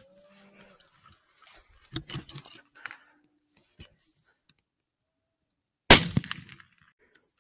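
A single rifle shot about six seconds in, sudden and very loud, dying away over about half a second.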